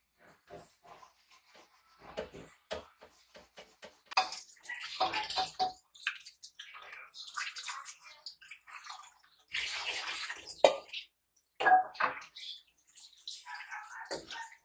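Water splashing and running in short bursts, with scattered small clicks and knocks.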